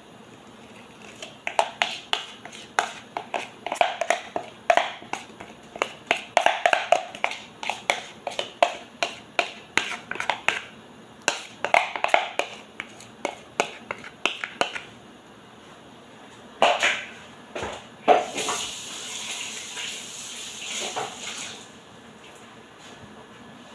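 Batter being emptied from a plastic mixing bowl into a glass baking dish: quick knocks and scrapes on the bowl, several a second, for most of the time. Near the end come a few louder knocks and then a short hiss.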